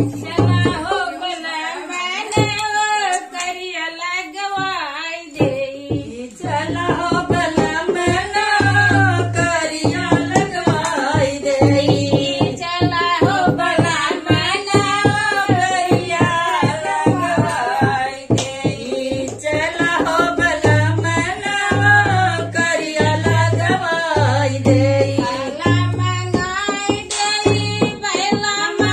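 A woman singing an Awadhi folk dance song over a hand drum that keeps a steady beat of deep bass strokes and sharp slaps.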